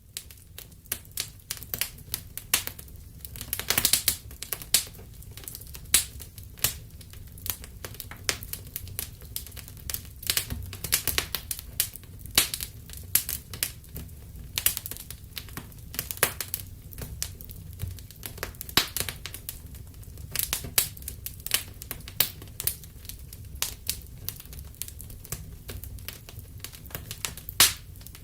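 Wood fire crackling in a fireplace: irregular snaps and pops over a low steady rumble of the flames.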